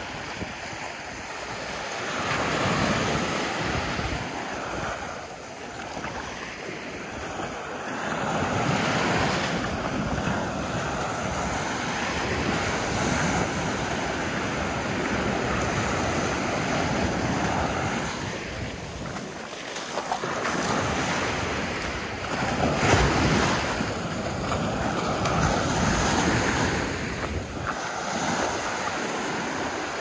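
Small ocean waves breaking and washing up the sand at the water's edge, the surf swelling and easing every few seconds. Wind buffets the microphone throughout.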